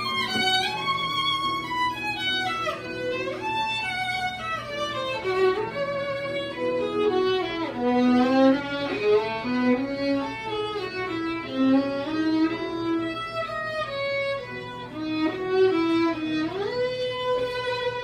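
Violin played live: a melody of held notes, with quicker runs of notes around the middle and a slide up into a long held note near the end.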